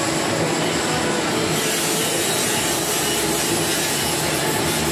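Steady, loud rushing noise with a faint hum, unchanging in level: constant workshop background noise.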